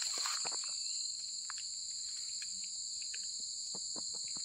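Steady, high-pitched droning of forest insects, an unbroken two-toned whine, with a few faint short ticks scattered through it.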